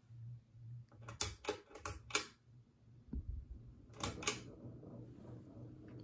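Ceiling fan pull-chain speed switch clicking: about four sharp clicks in quick succession about a second in, and two more about four seconds in, with a soft low thump between. Under them runs the faint steady hum of the small fan motor.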